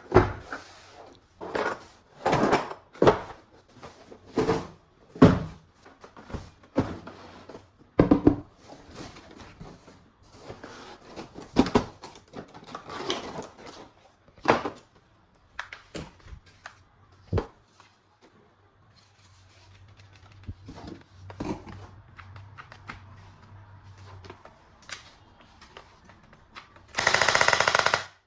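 Plastic toy guns being handled: irregular clicks, knocks and rustles as parts are worked, then a loud rapid rattling burst near the end like toy machine-gun fire.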